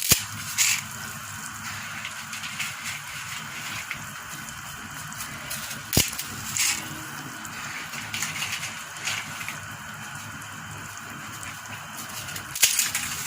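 A pot of salted water boiling with broken spaghetti cooking in it, bubbling and crackling steadily, with scattered clicks and a sharp knock about six seconds in.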